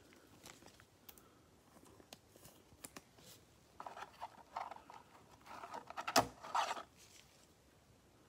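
Faint rustling and small clicks of thin plastic as a trading card in a clear sleeve is handled with nitrile gloves and fitted into a rigid clear plastic card holder, busier for a few seconds in the middle with one sharp click about six seconds in.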